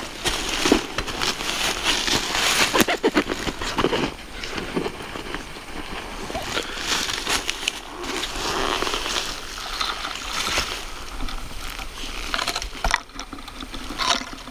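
Dry fallen leaves and twigs rustling and crackling as a person moves and crouches in leaf litter, with irregular close crunches.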